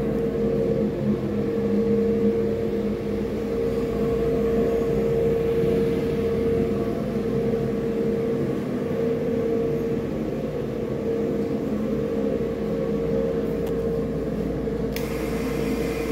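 Steady mechanical hum with a constant mid-pitched tone and a lower tone beneath it.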